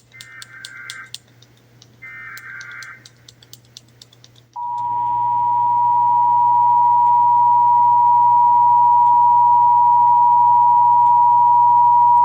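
Emergency Alert System SAME header: two short bursts of data tones, about a second each. Then, about four and a half seconds in, the EAS two-tone attention signal (853 and 960 Hz together) starts and holds steady and loud for about eight seconds. Together they announce a Required Monthly Test alert.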